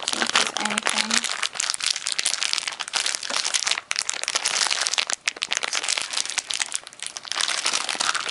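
Crinkly plastic packaging of doll shoes crackling and rustling without a break as hands try to pull it open.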